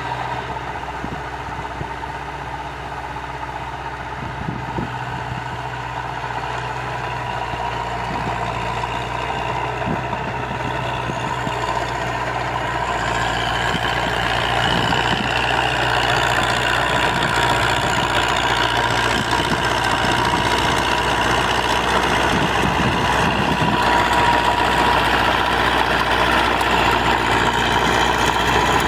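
Massey Ferguson tractor on crawler tracks running steadily under load while its rear rotary tiller churns dry soil, with a steady whine over the engine, growing louder as it comes closer.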